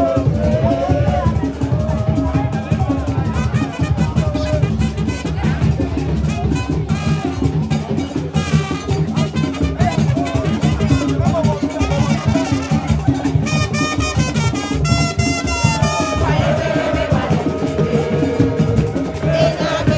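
Drum-led music with steady, dense percussion and voices singing over it, with a high shrill melodic part for a couple of seconds in the last third.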